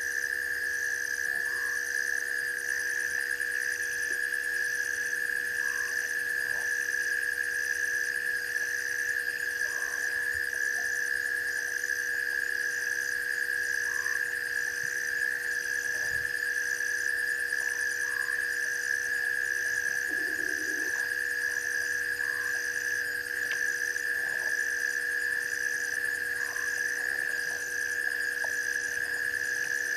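Night chorus of frogs and insects: a steady high trill throughout, an evenly pulsing higher call about once a second, and a short call repeating about every four seconds.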